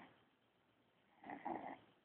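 A sleeping baby snoring, with one snore about half a second long a little over a second in.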